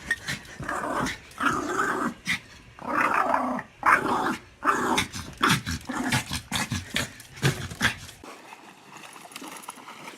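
A dog growling in a series of repeated bursts, each half a second to a second long; quieter from about eight seconds in.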